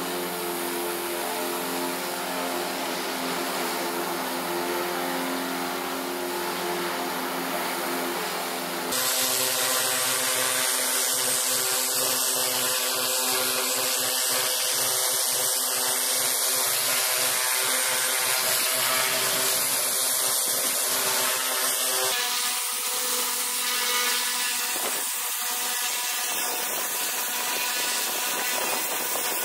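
High-pressure washer running steadily, its motor and pump humming under the hiss of the water jet. First a rotary surface cleaner runs over metal roof sheeting; after a sudden change about nine seconds in, a spray lance blasts grime off roof tiles with a brighter hiss. The sound shifts again about 22 seconds in.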